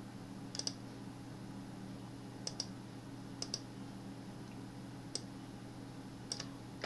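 Computer mouse button clicking: about six short clicks spaced a second or so apart, several of them doubled. A steady low hum runs underneath.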